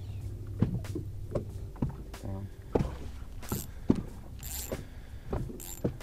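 Fishing tackle being handled in a boat: irregular light knocks and clicks over a steady low hum, with a few brief hissy sounds in the second half.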